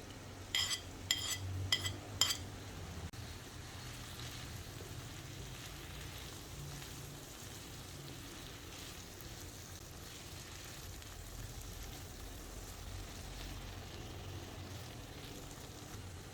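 Food frying in oil in a pan with a steady sizzle. Near the start, a utensil strikes the pan four times with short metallic clinks.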